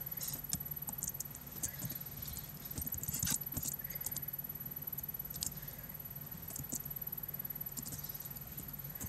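Computer keyboard keys clicking in slow, irregular strokes as a terminal command is typed, loudest at a cluster of keystrokes a little over three seconds in. A steady low hum runs underneath.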